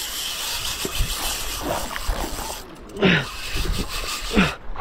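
Fast-flowing water rushing and swirling, with wind on the microphone and a few low thumps, and two brief falling squeals about three and four and a half seconds in.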